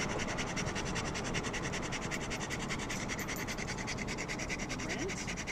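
A dog panting hard and fast right at the microphone, a quick, even rhythm of breaths with its tongue hanging out, over the steady road noise of a moving car. It is worked up after a run.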